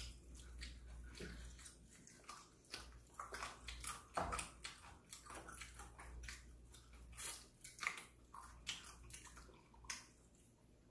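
People chewing and biting into fried chicken: a faint, irregular scatter of short crunches, clicks and mouth smacks over a low steady hum.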